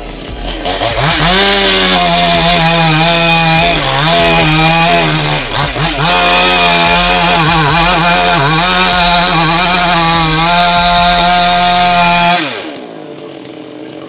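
Two-stroke chainsaw revved up to full speed and held there, its pitch dipping briefly now and then as it bogs under load cutting into a coconut palm trunk. About twelve seconds in the throttle is released and the engine note falls away.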